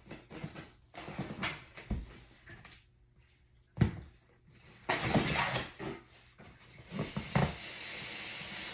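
Handling noises: scattered knocks and clicks with one sharp thump about four seconds in, then stretches of rustling toward the end.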